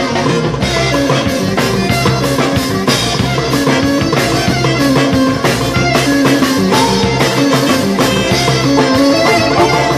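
Live music from clarinet, bouzouki and percussion playing together at a steady beat.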